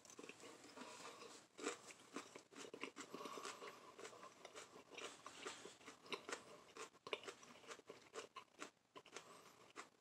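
Faint, irregular crunching and chewing of a raw habanero pepper, close to the microphone.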